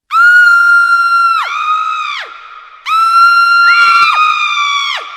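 Girls screaming in terror: long, high-pitched shrieks, each held at one pitch and then dropping away at the end. They come in two waves, with a second voice joining and overlapping each.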